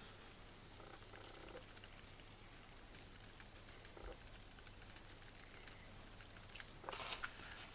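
Static grass applicator being shaken over a foam shrub block, 6 mm flock fibres pattering softly through its sieve, with one brief louder rattle about seven seconds in.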